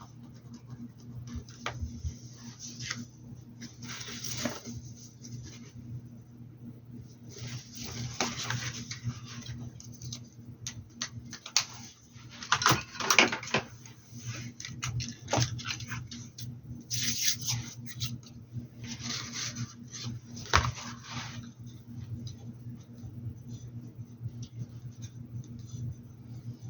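Paintbrush strokes on a hat: scratchy brushing in short bursts, with occasional sharp clicks, over a steady low hum.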